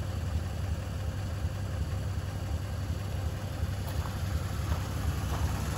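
1948 Lincoln Continental's 292 cubic-inch V12 engine idling steadily, a low even rumble.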